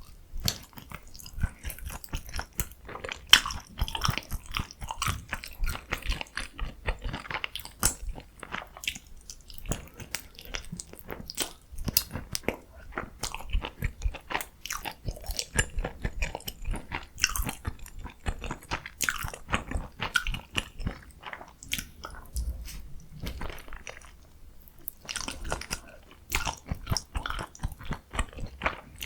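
Close-miked biting and chewing of food: dense, irregular crunches and mouth clicks, with short lulls about nine seconds in and again near twenty-four seconds.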